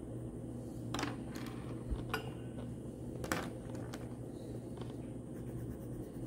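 Wax crayon colouring on paper, with a few light clicks and taps of the crayon and hand against the paper and table, mostly between one and three and a half seconds in.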